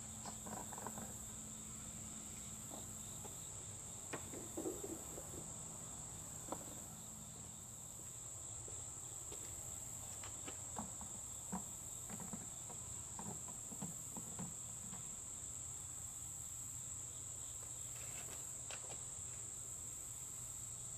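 Insects trilling in the background, a constant high-pitched drone. There are faint, scattered clicks and knocks from handling a plastic fuel can and a pump hose.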